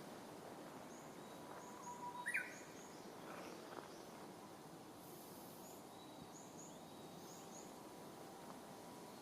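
Japanese bush warbler singing one phrase: a held low whistle that breaks about two seconds in into a quick rising-and-falling flourish, the loudest sound. Faint high chirps of other small birds come and go over a steady background hiss.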